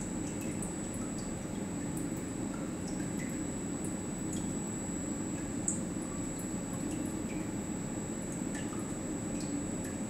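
Watson-Marlow peristaltic chlorine dosing pump running steadily during a flow-calibration run, a low hum with a thin high whine. Faint irregular drips of liquid are scattered through it.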